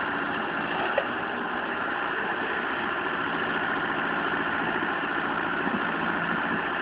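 Mahindra Arjun 605 tractor's diesel engine running steadily, with one short sharp click about a second in.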